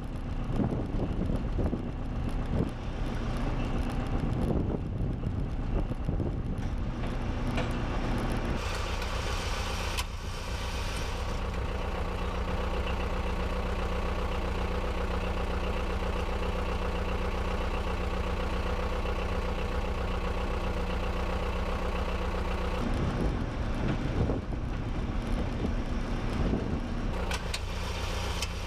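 Wind buffeting the microphone for roughly the first eight seconds, then a Unimog's diesel engine idling steadily.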